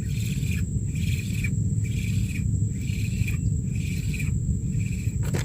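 Insects chirring in a steady pulsing rhythm, a little more than one pulse a second, with a thin steady high whine, over a continuous low rumble.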